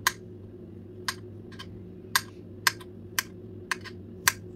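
Kitchen knife slicing a banana into rounds on a glass cutting board: a sharp click each time the blade goes through and meets the glass, about two a second.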